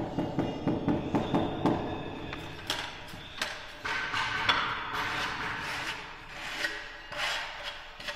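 Irregular sharp knocks and taps of tiles being set, several a second at times, over background music.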